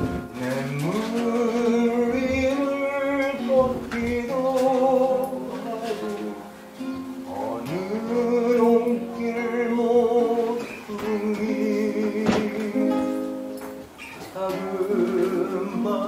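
A man singing a slow song to his own acoustic guitar, holding long notes with vibrato, with short pauses between phrases.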